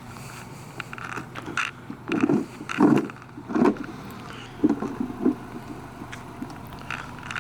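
Car engine running at idle, a steady low hum, with several short louder sounds breaking in between about two and four seconds in and again around five seconds.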